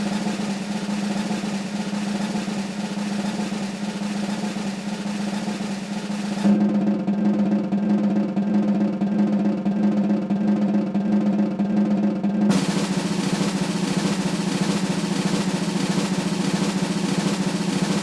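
Continuous snare drum roll sound effect. The roll turns duller about six seconds in, then brightens again about twelve seconds in.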